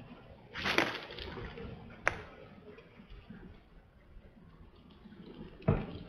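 An owl bathing in a shallow plastic kiddie pool: brief splashes of water, about a second in and again near the end, with a sharp drip-like tick around two seconds.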